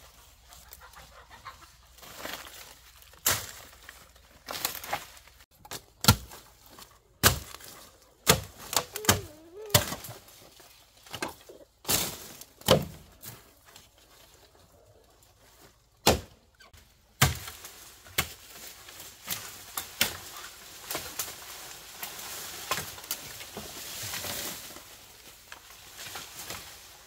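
A dozen or more sharp knocks and chopping strikes at uneven intervals, heaviest through the first two-thirds. A brief animal call comes about nine seconds in.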